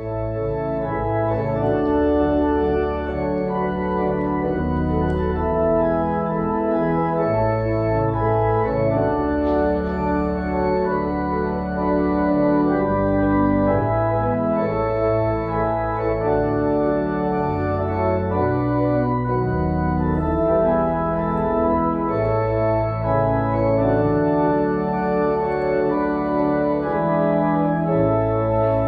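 Church organ playing a postlude after the dismissal: full chords of held notes over long sustained bass notes, entering abruptly at the start.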